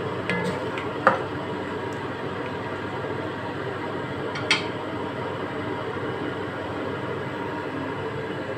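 A wooden spatula knocks against a cooking pot while lamb pieces are turned: a few clicks at the start, one about a second in and one more near the middle. Underneath is a steady rushing background noise.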